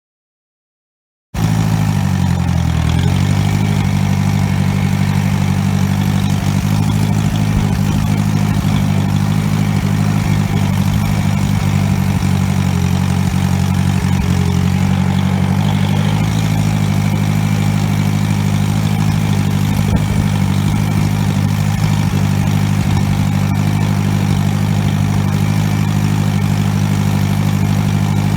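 1952 Massey Harris Pony tractor's four-cylinder engine running steadily, loud and close; its pitch dips briefly just after it comes in and then holds steady. The sound cuts in about a second in after a moment of silence.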